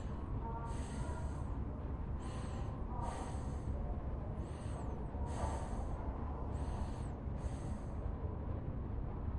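Library ambience soundscape: a steady low rumble, with a run of short, high-pitched scratchy sounds about every 0.7 seconds that stops near the end.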